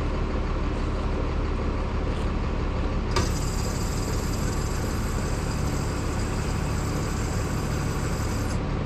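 Cummins N-14 inline-six diesel engine running at a steady idle, freshly rebuilt. A click about three seconds in, after which a faint high hiss joins and stops shortly before the end.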